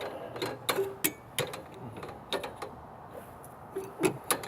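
Metal hand tool clicking and clanking on the oil drain plug of an Ariens ST824 snowblower as it is worked loose: a string of sharp separate clicks with a short creak or two.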